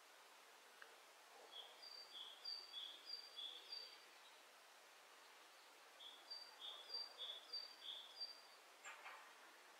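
Great tit singing faintly: two phrases of its two-note 'teacher-teacher' song, with a higher and a lower note alternating about twice a second.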